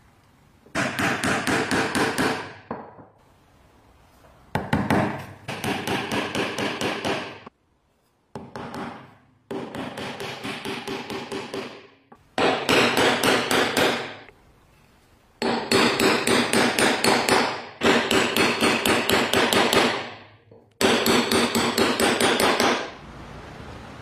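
A small hammer tapping nails into wood in quick bursts of rapid, evenly spaced taps. There are about eight bursts of roughly two seconds each, with short pauses between them.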